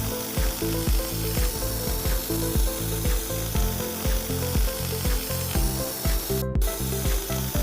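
Background music with a steady beat, thumping about twice a second under held notes that change pitch in steps, with two brief cut-outs near the end.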